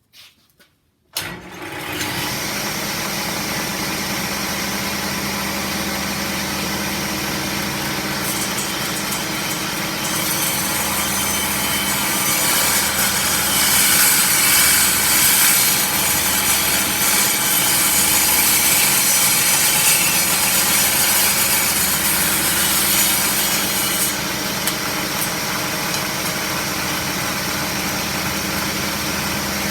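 Table saw switched on about a second in, its motor coming up to a steady running hum. About ten seconds in the blade cuts into wood and the sound gets louder and hissier for some fourteen seconds, then the saw runs free again.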